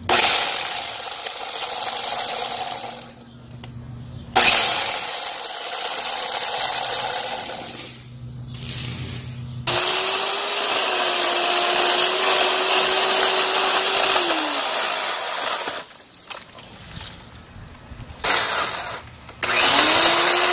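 Worx 8-amp corded electric chainsaw with an 8-inch bar, mounted on its extension pole, running in several bursts as it cuts tree branches. There is one longer run of about five seconds with a steady motor tone that drops as the motor winds down, and two short bursts near the end.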